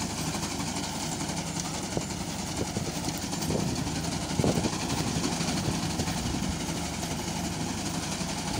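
Fiat tractor's diesel engine running steadily under load while it pulls a PTO-driven wheat reaper, with the reaper's cutter bar running. A few brief knocks sound about two seconds in and again about four and a half seconds in.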